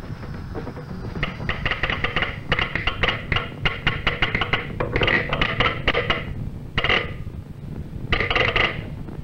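Soundtrack sound effects: runs of rapid, sharp clattering clicks in quick groups, with short pauses near the end, over a steady low hum.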